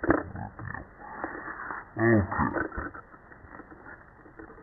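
Slowed-down, low-pitched handling noise from a plastic DVD case, with a sharp click at the start. About two seconds in, a deep, drawn-out voice-like groan sounds, the loudest thing here.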